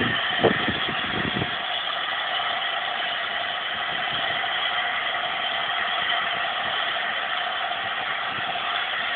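Blue LNER A4 Pacific steam locomotive standing at the platform, steam hissing from it steadily, with a few low thumps in the first second or so.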